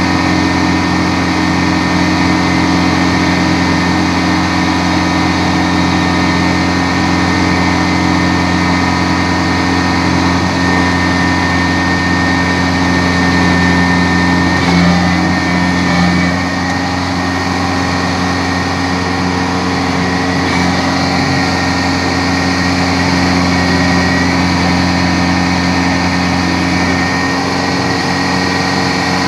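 Kubota DC-70 combine harvester's diesel engine running steadily, with a thin steady whine above the engine note. It grows briefly louder about halfway through.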